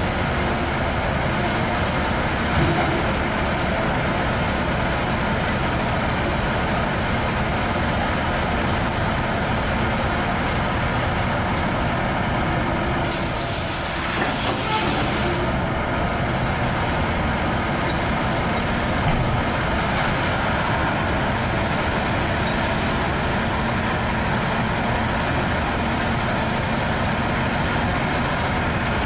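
Diesel engines of a Caterpillar hydraulic excavator and a dump truck running steadily while the excavator loads the truck, with a burst of air hissing for about two seconds around the middle.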